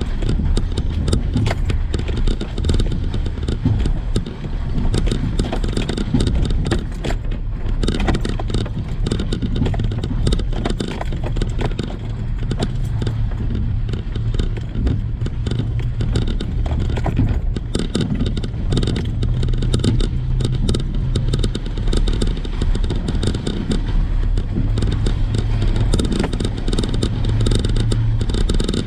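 Truck engine running at low speed while crawling over a rough off-road trail, with frequent clattering and knocking throughout.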